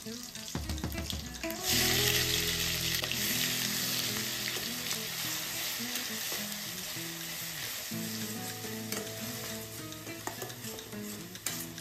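Onion paste dropped into hot oil in a stainless steel kadai: a loud sizzle breaks out about two seconds in, then keeps frying and slowly eases while it is stirred with a metal spatula.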